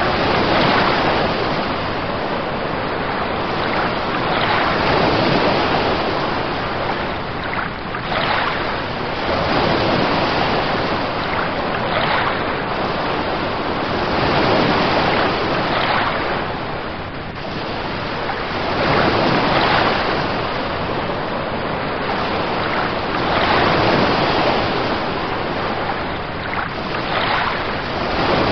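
Sea waves washing in a steady wash of water noise that swells and fades every few seconds.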